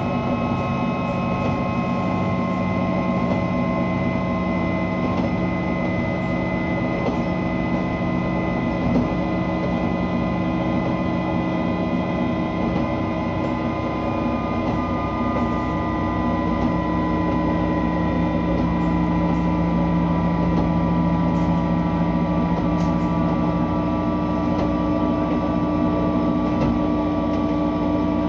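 JR West KiHa 120 diesel railcar running between stations: a steady drone of the diesel engine and drive, with the noise of wheels on rail. Its pitch drifts slowly, and the low engine note shifts near the end.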